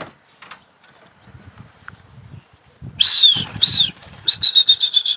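Domestic pigeons' wings flapping: quiet at first, then a loud flurry of wingbeats about three seconds in and a fast run of beats, about eight a second, near the end.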